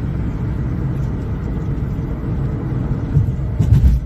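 Steady low rumble of a car's tyres and engine at highway speed, heard from inside the cabin, with a brief thump near the end.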